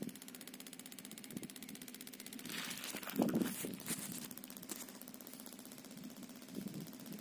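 Rapid, even ticking from a borewell's compressed-air line as air is driven down the HDPE hose to the jet nozzle for air-lift pumping; a tick-tick like this is the sign of good air flow. A brief louder rush of hiss comes about two and a half seconds in.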